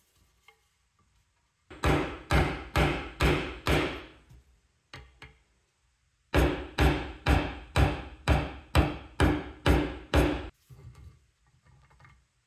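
Hammer blows on wood in quick, even succession: a run of about six, then after a pause of about two seconds a longer run of about eleven, roughly two and a half blows a second.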